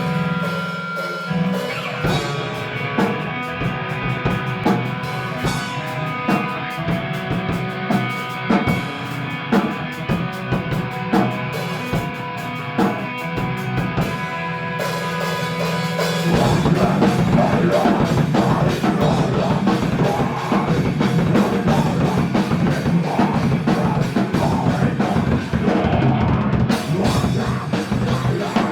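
Music with a drum kit: held notes over regular drum hits, becoming louder and fuller, like a rock band playing, a little over halfway through.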